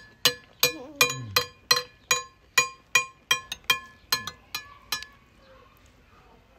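Metal cutlery tapping a ceramic plate: a quick run of ringing clinks, about three a second, that stops about five seconds in.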